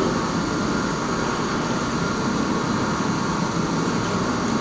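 High-pressure drain jetter running steadily, jetting water through its hose and turbo drill nozzle to clear a blocked house rainwater downpipe: an even, unbroken noise with no clear pitch.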